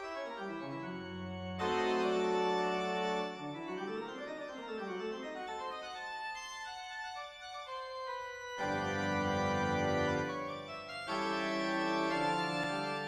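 Organ music playing sustained chords: a run slides down at the start and another rises and falls midway, and full loud chords come in about two, nine and eleven seconds in.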